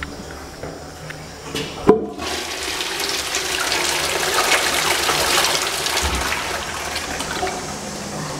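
Twyford Sola wall-hung rimless toilet flushing from its concealed cistern: a sharp click about two seconds in, then rushing water that swells and slowly tapers off.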